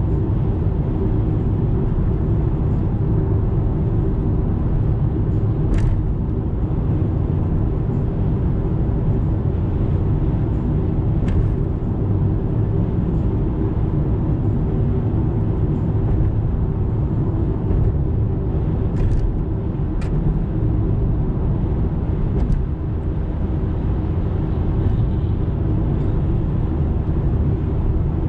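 Car cruising at expressway speed, heard from inside the cabin: a steady low rumble of tyres on the road mixed with engine hum, with a few faint clicks.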